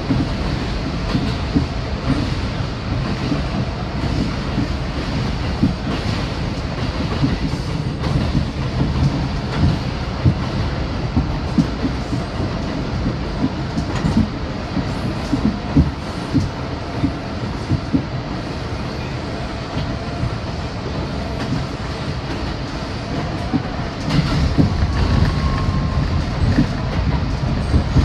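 Bombardier R62A subway car running along the track, heard from inside the car: a steady rumble with frequent clicks as the wheels pass over rail joints. The noise grows louder near the end.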